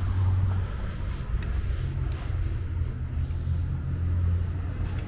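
Low steady rumble of road traffic, with a few faint knocks.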